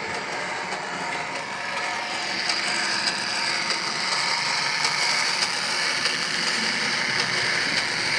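Sound decoder in an OO-gauge Dapol class 121/122 diesel railcar model playing a Leyland diesel engine sound through its small speaker while the model runs, with the rail-joint clicking function giving a run of small clicks. The sound gets a little louder and the clicks more prominent about two and a half seconds in.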